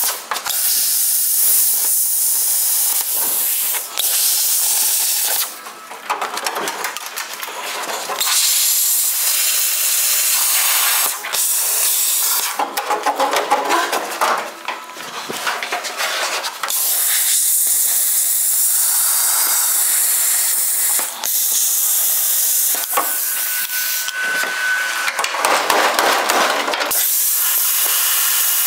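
Power tool cutting through a car body's sheet-metal floor, a loud high-pitched rushing noise in several long cuts with brief stops between them.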